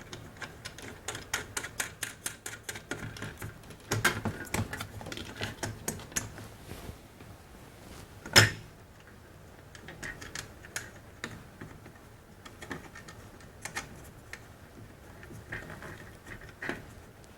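Light, rapid clicking and ticking of small metal parts as cap nuts are threaded onto a light-fixture bracket's mounting screws, with one sharper, louder click about eight seconds in.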